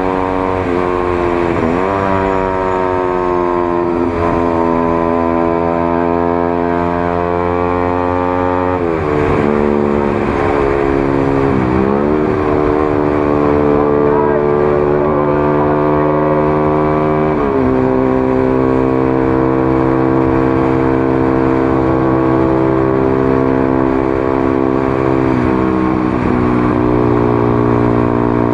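Honda CBR150R single-cylinder engine running through an aftermarket Daytona and Proliner exhaust while riding in traffic. The exhaust note holds mostly steady, and its pitch dips sharply and climbs back several times.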